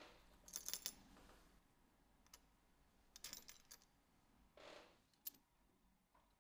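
Small metallic clicks and clinks from a steel watch bezel and its crystal being handled on a work surface and pressed onto the watch case, in a few short clusters with a brief rub before the last click.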